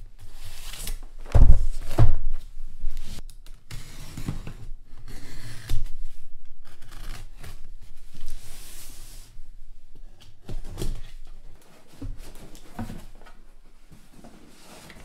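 Large cardboard shipping boxes being set down on a table with two heavy thumps about a second and a half in, then shifted and handled: scattered knocks with cardboard scraping and rustling.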